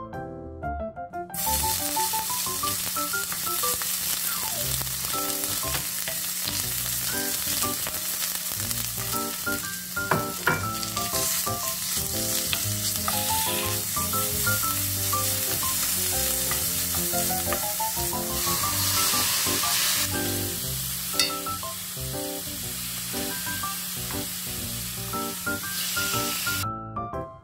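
Burdock strips and minced garlic sizzling in hot oil in a stainless steel frying pan while being stirred with a wooden spoon; marinated pork is added partway through and sizzles with them. The sizzling starts about a second in and stops shortly before the end. Light background music plays underneath.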